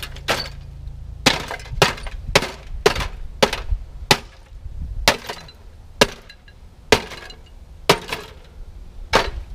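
Sledgehammer blows smashing a fire-burnt microwave oven, about a dozen sharp metal-and-glass impacts with shattering, coming about once a second or a little faster.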